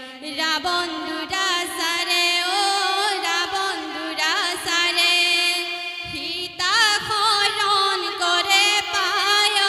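Women's voices singing an Assamese dihanam devotional song. A lead voice carries a winding, ornamented melody over a steady held low note, and the phrase breaks off and comes back in about six and a half seconds in.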